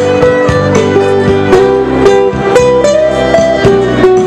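Live band music: a lead melody of long held notes, rising in pitch about three seconds in, over a nylon-string guitar strummed in a steady rhythm.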